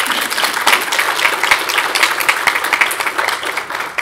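Audience applauding: a dense, steady patter of many hands clapping that starts to thin out near the end.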